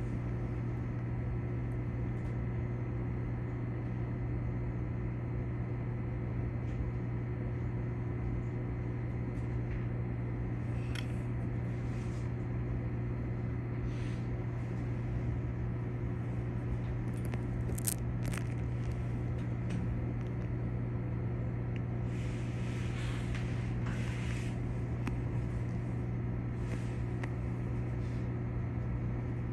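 Steady low electrical hum of a stopped Keikyu electric train, its onboard equipment running while it stands still. A few faint clicks and short rustles come through now and then.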